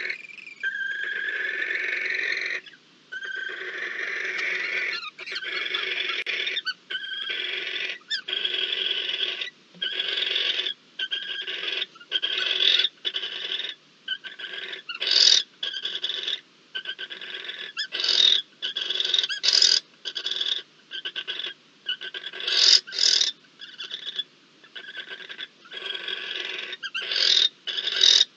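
Barn owls calling in a nest box with long, rasping hisses, which break up into quicker, shorter hissing calls. The calls grow louder in the second half as the pair mate.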